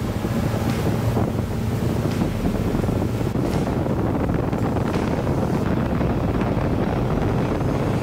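Wind buffeting the microphone over a boat running at speed: the steady drone of a Yamaha 175 four-stroke outboard under way and water rushing in its wake.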